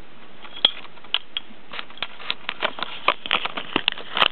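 Irregular light clicks and taps from a rooster scuffling at a socked foot on carpet: his claws and beak on the carpet and the sock. Sparse at first, coming quickly one after another over the last couple of seconds.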